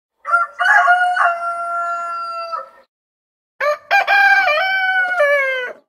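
Rooster crowing twice, two long cock-a-doodle-doo calls about two seconds each, the second dropping in pitch at its end.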